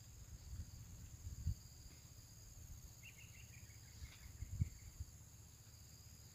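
Quiet riverside ambience: a steady high insect drone over a low rumble, with a brief chirping call about three seconds in and two soft knocks.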